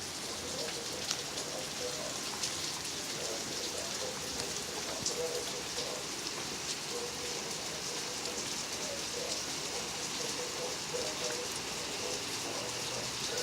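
Steady rain falling during a thunderstorm, an even hiss with scattered drops ticking close by.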